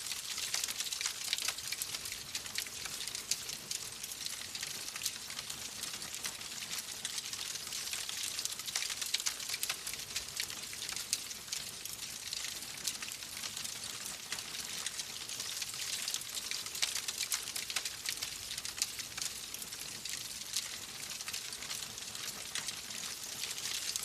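Fireplace fire crackling steadily: a constant hiss thick with many small, quick pops and snaps.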